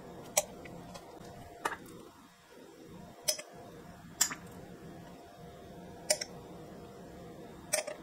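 Faint, sparse clicks, about six over eight seconds, of a pipette tapping against a glass beaker and a glass jar while rosemary essential oil is dropped in.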